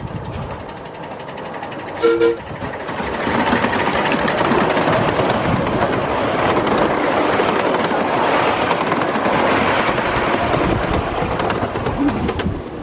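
A 1/5-scale ride-on miniature train sounds one short two-tone toot. It then runs past close by over a wooden track deck, rising to a loud, steady rumble and clatter that lasts about nine seconds before easing near the end.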